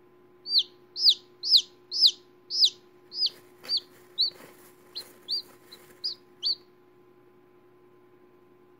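Newly hatched chicken chick peeping: a run of about a dozen short, high peeps, each dropping in pitch, roughly two a second, growing fainter and stopping after about six seconds.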